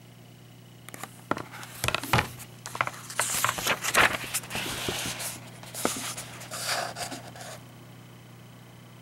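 A paper book page being turned close to the microphone: irregular rustling and crackling of paper with sharp little clicks. It starts about a second in and stops well before the end.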